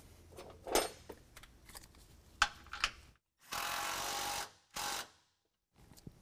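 Cordless electric impact driver with a 13 mm socket running a flange bolt through a bracket into a steel truck frame: a steady burst of about a second, then a short second burst. Before it come a few light metal clicks.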